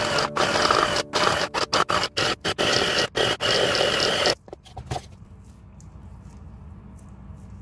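Kenwood electric mini chopper run on pulse in quick short bursts, its blade chopping raw minced meat. It stops a little over four seconds in.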